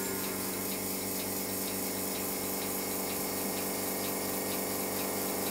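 Milking machine running: the steady hum of the vacuum pump with the pulsator ticking evenly, a little more than two ticks a second.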